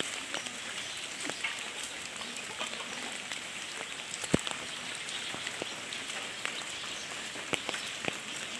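Heavy rain falling: a steady hiss with scattered sharp drip and tap sounds of drops striking, and one louder knock about four seconds in.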